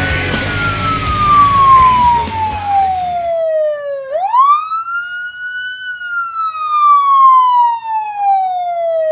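Emergency-vehicle siren wailing, each cycle a quick rise in pitch followed by a slow fall, starting again about four seconds in. A dense noisy backing plays under it and cuts out about three seconds in, leaving the siren alone.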